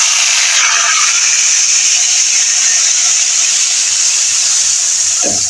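Wet garlic, chili, turmeric and salt paste sizzling in hot oil in an iron karahi, a loud, steady hiss.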